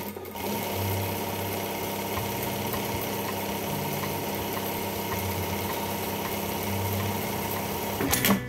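Jack A7 direct-drive industrial lockstitch sewing machine running steadily at sewing speed, stitching through fabric, with a brief louder clatter near the end as it stops.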